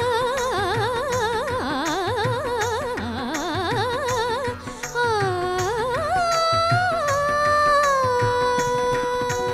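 A girl singing a Malayalam semi-classical film song in Carnatic style, with fast ornamented runs that waver up and down in pitch, then slower phrases that settle onto a long held note near the end. A live band accompanies her, with drum strokes keeping a steady rhythm.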